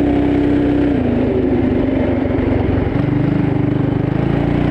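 Coleman CT200U mini bike's small single-cylinder engine running under load while riding. Its pitch drops about a second in, as the engine slows, then climbs again near the end.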